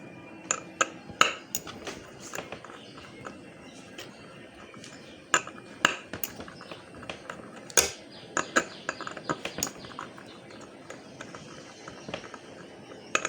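Irregular sharp metallic clicks and clinks of small hand tools and screws against the metal parts of an old hard disk as its spindle motor is taken apart. The loudest clicks come a little after a second in, around five to six seconds in, and near eight seconds in.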